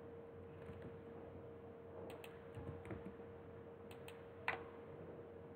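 Computer keyboard keys tapped now and then: a few sparse, sharp clicks, the loudest about four and a half seconds in, over a faint steady hum.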